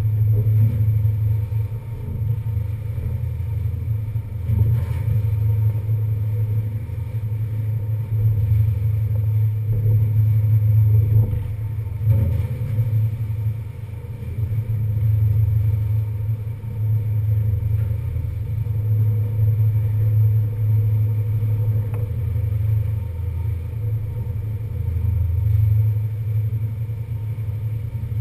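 Steady low rumble on the open deck of a moving passenger ferry, its engines and the wind blended together, swelling and easing every few seconds.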